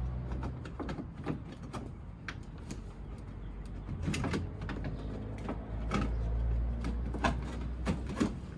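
Scattered clicks, knocks and scrapes of a car horn and its wiring connector being worked into place by hand behind a plastic front grille, over a low rumble.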